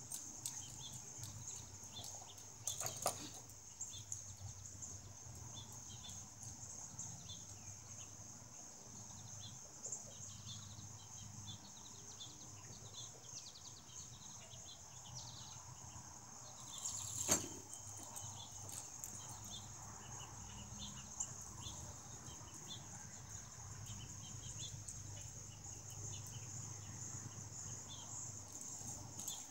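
Outdoor summer ambience: a steady high drone of insects, with scattered short bird chirps. Two brief knocks, about 3 seconds in and again about 17 seconds in, the second the loudest sound.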